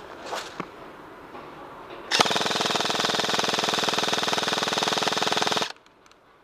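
Airsoft electric rifle (M4-style AEG) firing one long full-auto burst, a fast even rattle lasting about three and a half seconds. It starts about two seconds in and cuts off suddenly.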